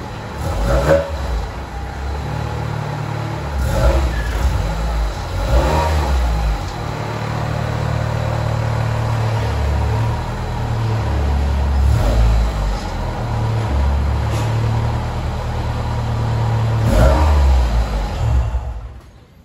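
Acura Integra's four-cylinder engine running at low speed with the throttle eased on and off as the car creeps forward; the engine is switched off about a second before the end.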